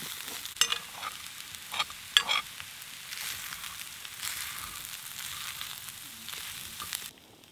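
Fried rice sizzling in a cast-iron skillet while a metal spoon stirs it, with a few sharp scrapes and clinks of the spoon on the pan in the first couple of seconds. The sizzle cuts off suddenly near the end.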